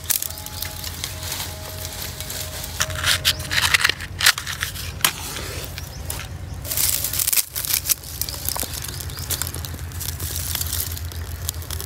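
Dry grass and straw stalks crunching and snapping in uneven bursts as they are broken up by hand to feed a small kindling fire, which crackles.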